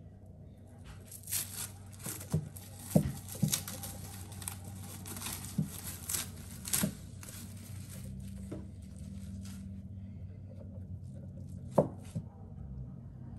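Plastic cling wrap crinkling and crackling in irregular bursts as it is peeled off a block of blue cheese, followed by a single knock near the end.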